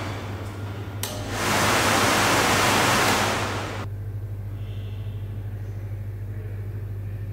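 Electric motor of a belt-driven kinetic sculpture humming steadily at a low pitch. A loud rushing hiss starts abruptly about a second in and dies away about three seconds later.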